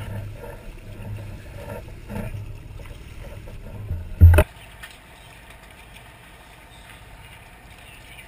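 Low boat rumble with wind buffeting the microphone, broken by one loud thump about four seconds in, after which only a faint steady hiss remains.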